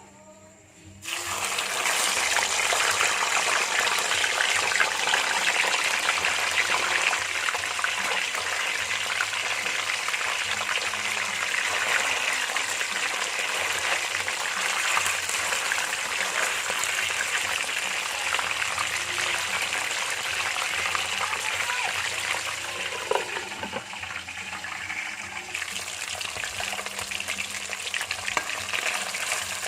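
Fish frying in hot oil: a dense, steady sizzle and crackle that starts suddenly about a second in and keeps going.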